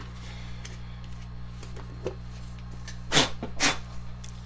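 Handling noise from a partly dismantled electric drill being moved on a plastic tool tray: a few faint clicks, then two knocks about half a second apart, about three seconds in. A steady low hum runs underneath.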